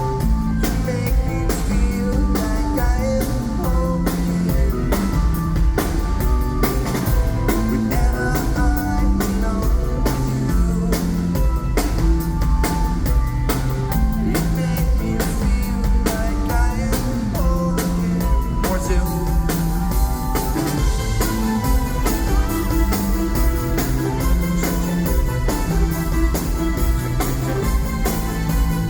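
Live band playing a song: drum kit, electric guitar and keyboards over a steady beat, during a soundcheck.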